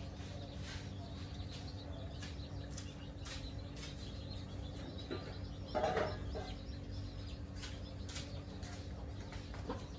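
Chickens clucking, with short high calls throughout and one louder call about six seconds in.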